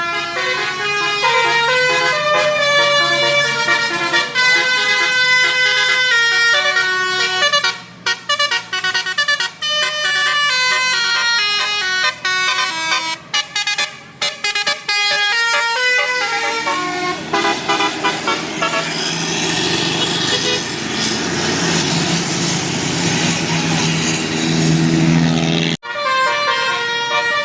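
Bus telolet horn of the Basuri type, a multi-tone musical air horn, playing a tune in quick stepped notes with short breaks. From about sixteen seconds the notes give way to a rushing noise with faint tones under it. After an abrupt cut near the end, the horn tune starts again.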